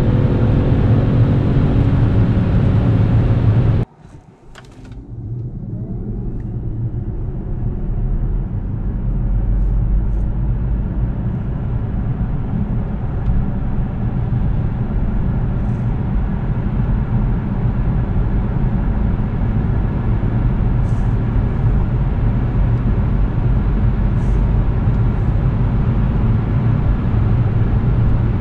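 BMW 530e xDrive plug-in hybrid at speed, its 2.0-litre turbo four-cylinder petrol engine running under load with heavy road noise. The sound cuts off sharply about four seconds in. It starts again as electric-only acceleration from rest: a faint rising whine over tyre and wind noise that grows steadily with speed.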